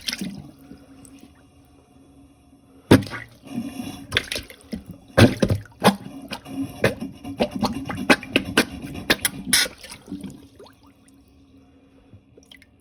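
Plunger pumped over a clogged kitchen-sink garbage disposal drain full of standing water: a run of quick wet plunges and splashes, about three a second, starting about three seconds in and stopping near ten seconds. The water does not drain; the clog holds.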